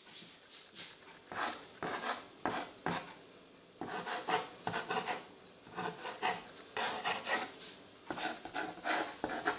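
Knife tip scratching letters through a thin layer of flour into a wooden board. It comes as a series of short scratches in quick clusters, with brief pauses between them.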